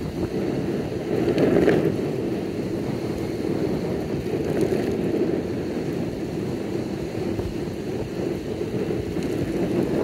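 Steady rumble of wheels rolling over asphalt, with wind buffeting the microphone; it swells briefly about one and a half seconds in.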